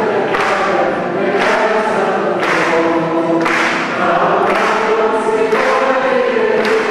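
Many voices singing together, a church hymn sung slowly, with a new syllable attack about once a second.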